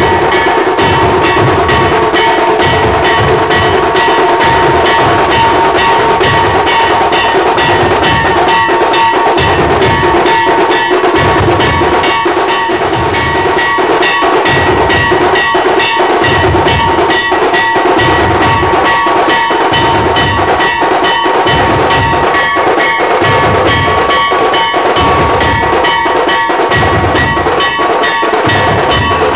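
Dhol-tasha drum ensemble playing loud and without pause. Deep dhol beats come in repeating groups over a fast, dense run of stick strokes, with a steady metallic ringing on top.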